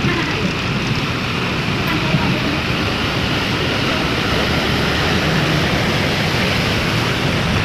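Heavy rain falling in a steady rushing hiss.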